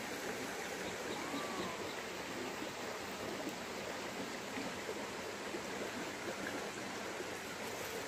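Shallow, rocky mountain stream flowing over stones: a steady rush of running water.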